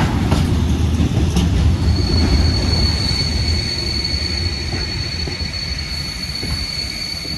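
Train running over the rails with a low rumble and a few sharp clicks, then a steady high-pitched wheel squeal that sets in about two seconds in and holds.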